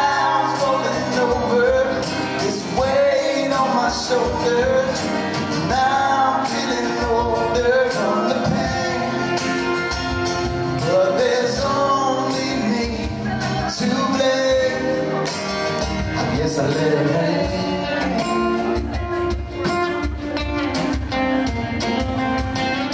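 Live acoustic band playing: strummed acoustic guitars and a djembe hand drum keeping a steady beat, with a male voice singing a melody over them.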